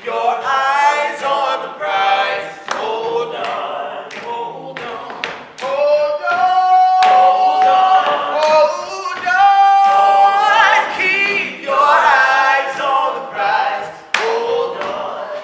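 Young male voices singing a cappella on stage, with long held notes about seven and ten seconds in and sharp percussive hits between the phrases.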